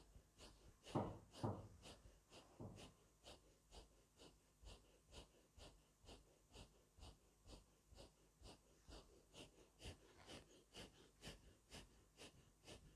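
Rapid, rhythmic, forceful breathing through the nose of the Naqshbandi Owaisi silent zikr (zikr-e-khafi), the breath drawn and pushed out about twice a second. The breaths are faint, with two louder, deeper breaths about a second in.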